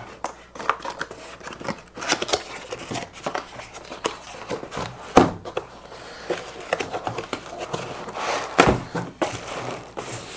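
A cardboard shipping box being opened by hand: irregular scraping, rustling and crinkling of cardboard and packing, with two sharp knocks, one about halfway through and one near the end.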